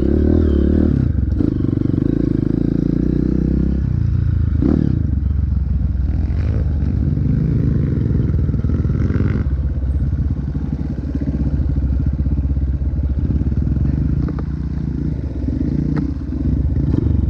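Dirt bike engine running under way, its note shifting with the throttle, with a few short knocks and scrapes from the bike.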